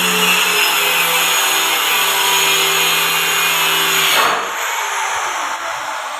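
Electric woodworking power tool running at steady speed, then switched off about four seconds in, its motor winding down with a falling whine.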